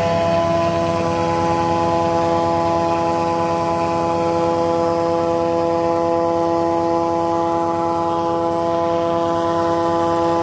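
Masala (chilli) grinder pulverizer driven by a 2 HP Crompton electric motor, running at full speed and grinding dried red chillies into powder. It makes a steady, unchanging whine with several pitches layered over a low hum.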